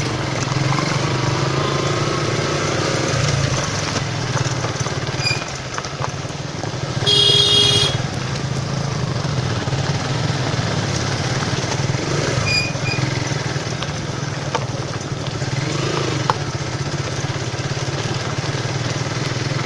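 Suzuki Gixxer single-cylinder motorcycle engine running steadily while being ridden on a rough track. A horn honks once for about a second, about seven seconds in.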